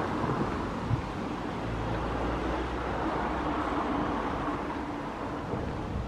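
Outdoor noise with wind buffeting the microphone, joined about two seconds in by the low, steady hum of a distant engine that fades towards the end.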